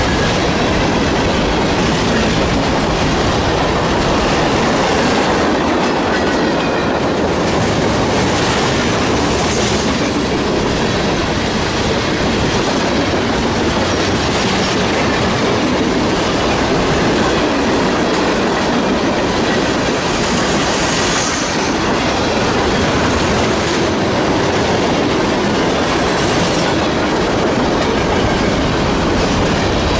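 Cars of a mixed manifest freight train rolling past at close range: a steady, loud rumble and clatter of steel wheels on the rails.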